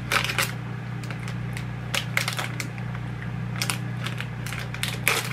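Plastic candy wrapper crinkling with irregular crackles as a pack of lollipops is opened, over a steady low hum.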